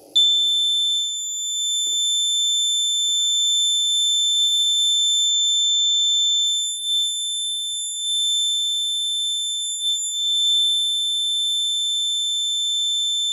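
Piezo alarm buzzer on an accident-detection circuit board sounding one continuous high-pitched tone, switched on at once. It is the accident alert raised by the accelerometer sensing a backward tilt, latched on until the reset switch is pressed.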